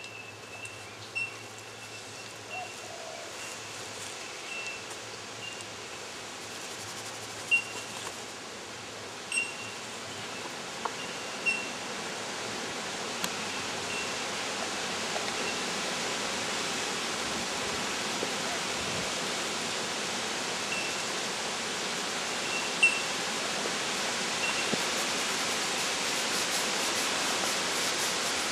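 Outdoor ambience: a steady rushing hiss that slowly grows louder. Over it come short high chirps repeating every second or so and a few sharp taps.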